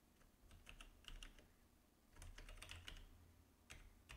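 Faint typing on a computer keyboard: two quick runs of keystrokes, then a couple of single taps near the end.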